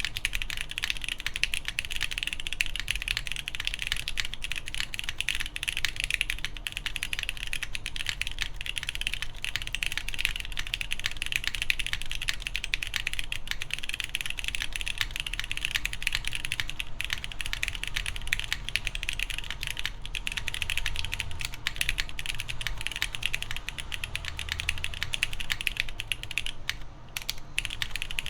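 Continuous fast typing on an Origami TKL mechanical keyboard with lubed Cherry MX2A Brown tactile switches, a polycarbonate plate and GMK keycaps, with a brief pause near the end.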